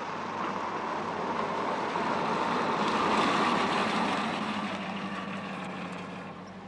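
A car driving up and pulling in to a stop: engine and tyre noise grow louder to a peak about halfway, then ease off as it slows.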